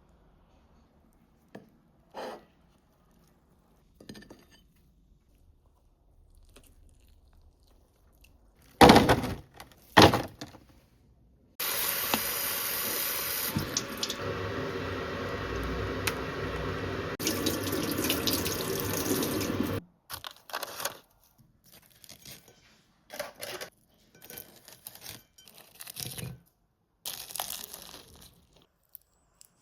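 Kitchen tap running steadily into a sink for about eight seconds. Before it come two loud short clatters, and after it scattered small knocks and rattles.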